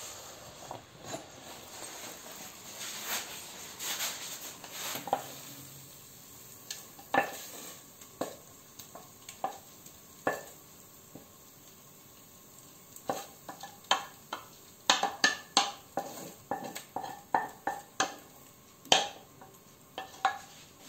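Wooden spoon scraping thick béchamel out of a stainless-steel saucepan, with sharp knocks of the spoon against the metal pan, each ringing briefly. The knocks come in quick runs in the second half.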